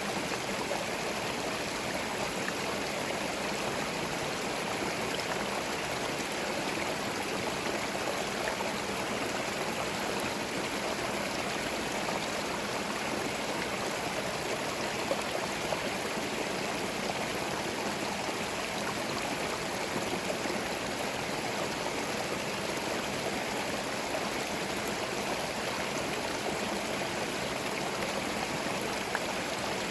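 A small forest stream flowing over stones, a steady rushing and gurgling of water.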